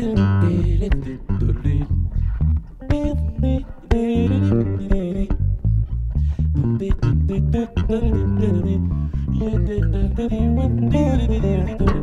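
Two electric basses playing an instrumental groove together, busy plucked notes over a steady low line.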